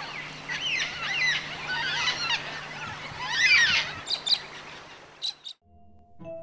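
A chorus of birds chirping and calling in quick overlapping phrases over a steady low hum. It cuts off about five and a half seconds in, and a few soft music notes begin.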